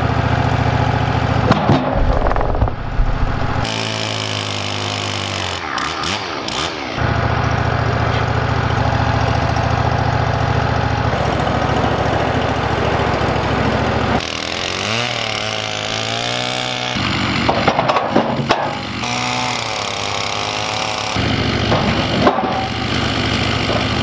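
Wood-Mizer LT15 portable bandsaw mill running, its engine note mostly steady but sliding up and down twice, around four and fifteen seconds in.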